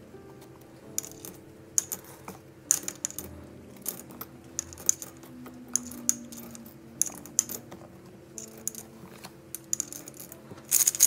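Coins dropped one at a time through the slot of a glazed ceramic owl coin bank: a quick, irregular run of clinks, with a louder cluster of several coins near the end.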